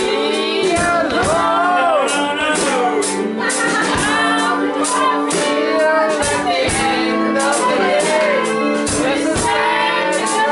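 A live band playing a song, with a woman and men singing together over drums and electric guitar.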